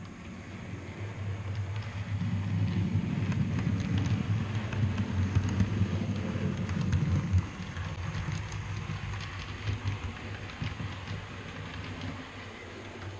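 Train passing, as a sound effect laid over a model railway: a low rumble swells and then cuts off sharply about seven seconds in, with wheels clicking over rail joints throughout and a quieter rumble after.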